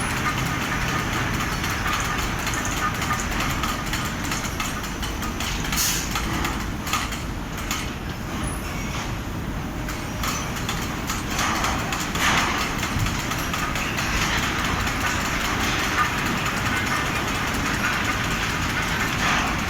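Large fabric spreading machine running, with a steady mechanical rumble and a few short, louder noisy bursts.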